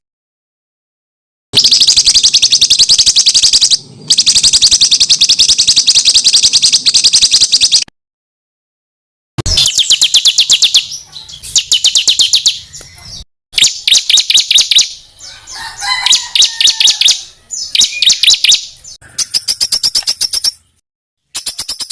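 Songbird song in rapid-fire bursts: long runs of sharp, high notes repeated about a dozen times a second. The runs start and stop abruptly between stretches, as in spliced recordings, and a lower gliding whistle shows up about two-thirds of the way through.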